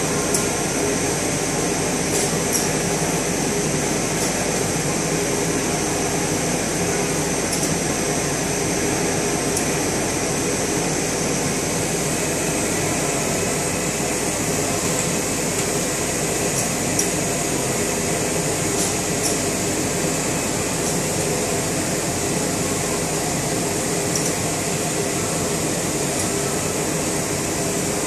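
Automated pick-and-place machine with six Ezi-Servo axes running: a steady mechanical hum with a high-pitched whine, and faint clicks every few seconds.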